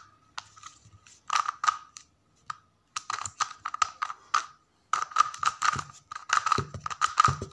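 2x2 plastic speed cube being turned by hand: rapid clacking clicks of its layers in three quick bursts as an OLL algorithm is run.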